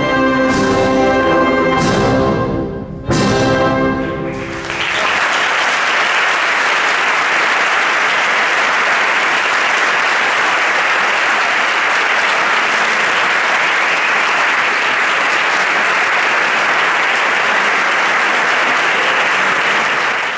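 Symphonic wind band playing the closing chords of a processional march, with several loud struck chords about a second apart. About four seconds in, the audience starts applauding, and the applause runs steadily until it cuts off suddenly.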